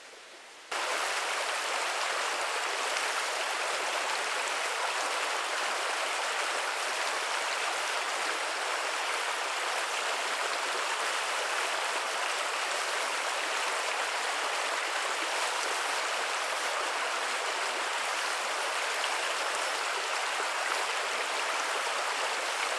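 Small forest brook rushing steadily over a log jam, a dense even water noise that cuts in abruptly less than a second in.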